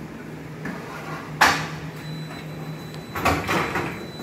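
Otis traction elevator arriving at the landing: a steady low machine hum, a single sharp clunk about a second and a half in, then the hoistway doors sliding open with a run of rattling clatter near the end.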